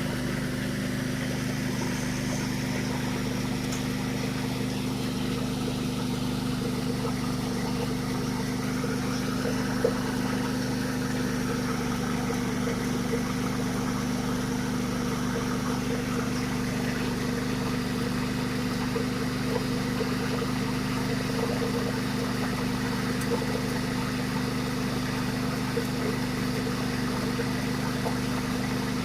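Engine-driven coffee hulling machine running steadily, hulling dried coffee to separate the beans from their husks: a constant low hum that does not change speed, with one sharp click about ten seconds in.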